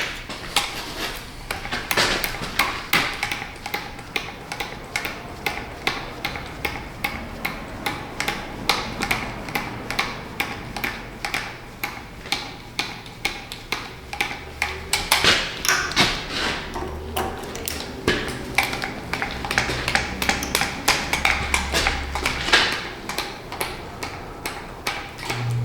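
Hand-lever grease gun being pumped into the grease fittings of a John Deere 35D mini excavator: a long run of sharp metallic clicks and clacks, roughly two a second.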